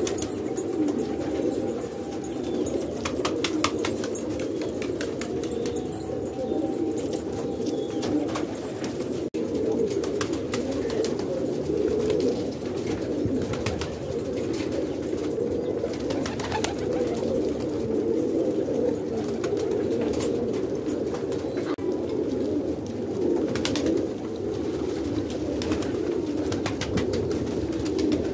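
Domestic pigeons cooing, several at once in a steady, overlapping low burble: the courtship cooing of males displaying to hens.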